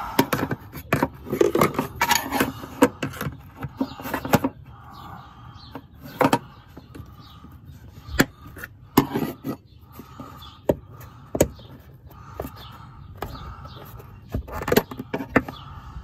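Irregular sharp clicks and knocks, some in quick clusters, with faint whining between them in the second half.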